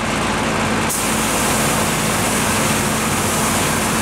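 Compressed-air paint spray gun hissing steadily as the colour coat goes on, the hiss turning brighter about a second in, over a steady motor hum.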